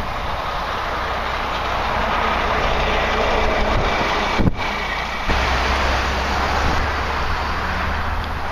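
Steady rushing noise, broken by a short dropout about halfway where the recording is spliced, with a steadier low rumble after it.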